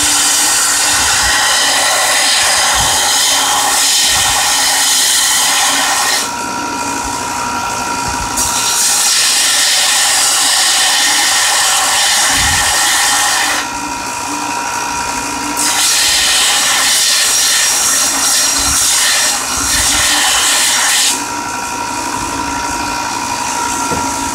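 Belt grinder grinding a steel knife blade pressed against the running belt, with a loud, high grinding hiss. The hiss drops away three times as the blade is lifted off, while the grinder's motor and belt keep running with a steady whine.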